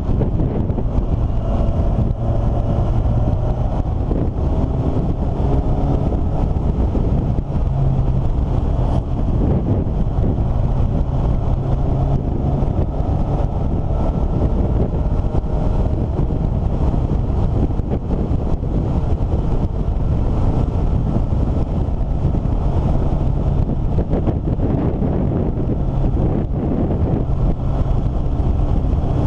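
A vehicle's engine running under way, with heavy wind rumble on the microphone. The engine note rises and falls as it climbs and slows through the bends.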